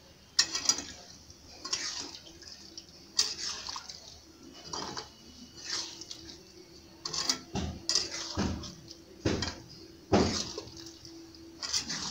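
A metal spatula stirring a wet curry in a kadai, scraping and knocking against the pan in irregular strokes about once a second. The thin gravy gives a sloshing, liquid sound.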